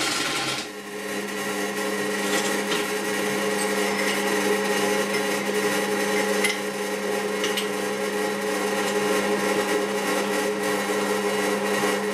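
Bench drill press motor running steadily while a 10 mm twist drill bit is fed by hand onto a drilled hole in metal bar, deburring its edge, with a few faint scraping ticks as the bit touches the metal.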